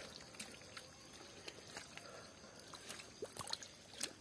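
Faint wet squelching and trickling of muddy water as stinging catfish writhe in pond mud, with scattered small splats and clicks.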